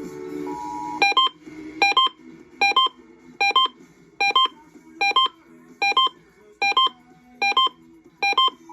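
Electronic alert beeps: a short double beep repeated about ten times, roughly once every 0.8 seconds, heralding an Emergency Alert System test on a radio broadcast. Music cuts off about a second in, as the beeping starts.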